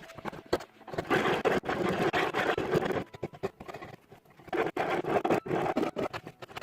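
Hand tool scraping on wood in two spells of about two seconds each, with a short pause between.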